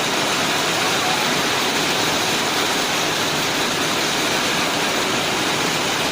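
Heavy rain and hail falling in a hailstorm: a steady, even rushing noise.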